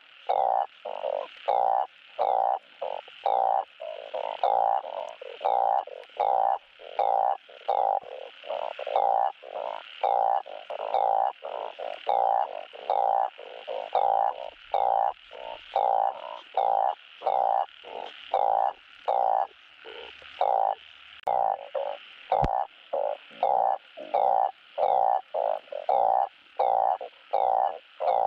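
Truncate-snouted burrowing frogs (Glyphoglossus molossus) giving their mating calls: a long, steady run of short croaks, about two a second. A single sharp click sounds about 22 seconds in.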